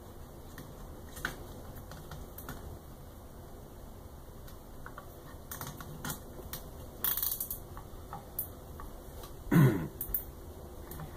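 A plastic zip tie being threaded and pulled tight around a Y-axis linear bearing on an acrylic bed plate: scattered light clicks and plastic rattles, then a short buzz falling in pitch, the loudest sound, near the end as the tie is drawn through its lock.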